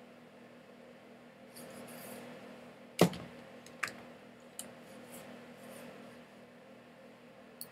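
Several sharp clicks from a computer mouse button, the loudest about three seconds in with a dull thump under it, over a faint steady electrical hum.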